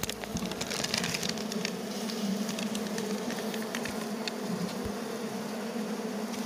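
Asian honey bee (Apis cerana) colony buzzing steadily on the combs of an opened wooden hive box, a low, even hum, with scattered light clicks over it.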